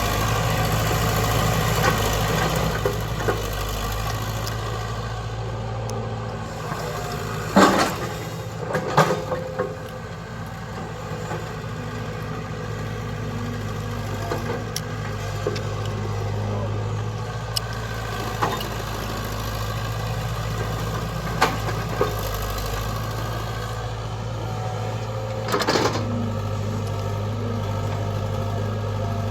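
Diesel engine of the tractor or excavator running steadily, with a few sharp metallic clanks: one about eight seconds in, another about a second later, and one near the end.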